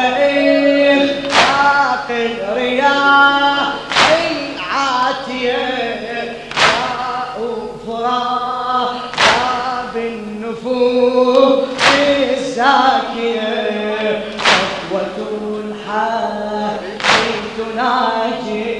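Male voices chanting a Shia latmiya lament, with a crowd striking their chests in unison about once every two and a half seconds.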